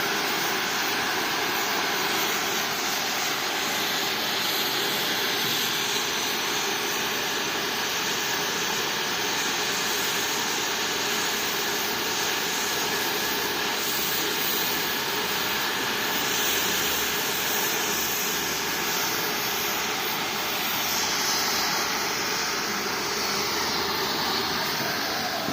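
CO2 (MIG) welding arc running continuously, a steady even hiss that holds without a break.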